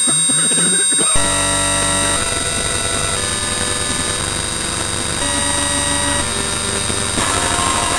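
Loud, harsh electronic noise. About a second in it jumps to a dense hiss layered with droning synthesizer-like tones, and the tones shift in steps roughly once a second.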